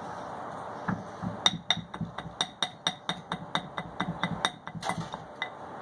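A utensil clinking rapidly and regularly against a mixing bowl as the honey and coconut oil mixture is stirred, about five clinks a second. The clinking starts about a second and a half in and stops shortly before the end.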